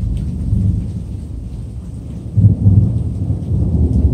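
Thunder rumbling, deep and rolling, swelling to a louder peak about two and a half seconds in.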